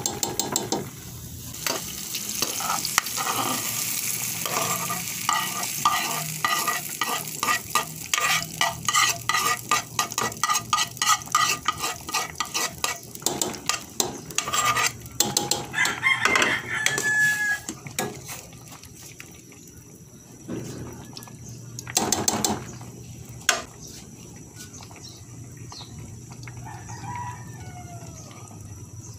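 Metal ladle stirring thick mung bean soup in a stainless steel pot, with rhythmic scraping strokes against the metal for the first half. About halfway through, sautéed onion and tomato are tipped in from a frying pan and stirred through, with a few scattered knocks after that.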